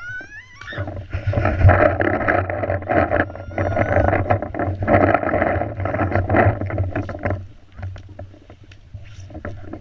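Rustling and low buffeting from a body-worn action camera while its wearer runs and scrambles over grass, loud for about six seconds and then easing off. A few sharp clicks follow near the end.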